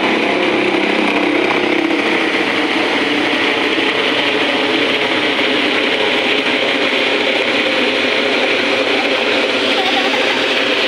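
Helicopter flying overhead: a loud, steady noise of its engine and rotor.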